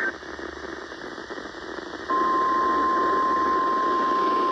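NOAA Weather Radio broadcast from station WWF48, heard through a receiver with radio static. The warbling SAME data burst ends right at the start, then there are about two seconds of static. About two seconds in, the steady 1050 Hz warning alarm tone begins and holds.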